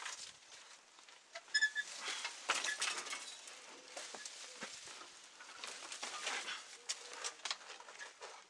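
Old steel bicycle being hauled out of a scrap heap through a bush: irregular clinks, knocks and rattles from the frame, wheel and spokes, with leaves and branches rustling. A bird calls faintly in the background.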